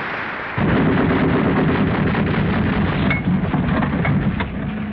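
Anti-aircraft guns firing: a sudden start about half a second in, then a dense, rapid run of shots over a low rumble.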